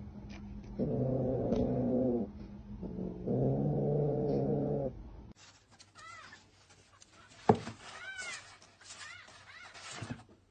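A cat's low, drawn-out growling yowls, twice, during a tussle between two cats. Then short, high mews from a kitten, rising and falling, several times, with one sharp knock in between.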